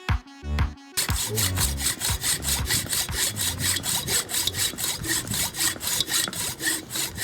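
An old hacksaw blade sawing through the wooden hammer handle where it sits in the hammer's eye, in quick, even back-and-forth strokes that start about a second in. A short stretch of background music plays just before the sawing begins.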